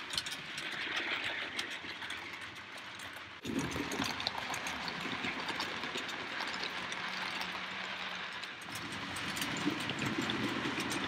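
OO gauge model trains running on the layout track: a steady motor hum with rapid small clicks of the wheels on the rails. The sound changes abruptly about three and a half seconds in, becoming louder with a lower hum.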